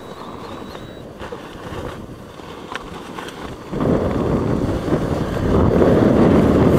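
Wind rushing over the camera's microphone during flight under an open parachute canopy, getting much louder about halfway through, with a few faint clicks.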